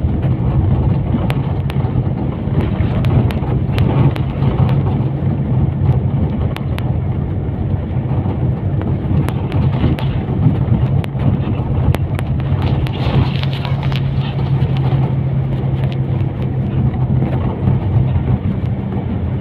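Steady running noise of a moving motor vehicle: a low engine and road drone with scattered sharp clicks and rattles.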